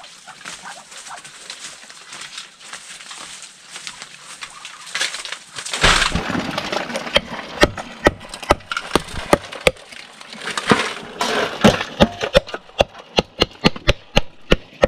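Claw hammer striking hermit crabs on a wooden block, cracking their shells open. From about six seconds in there are many sharp knocks, irregular and coming faster toward the end.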